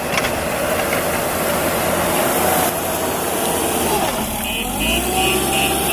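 Heavy diesel machinery engine running steadily, its pitch dipping and rising again about four seconds in as the load changes. Near the end a high, rapid beeping starts, like a reversing alarm.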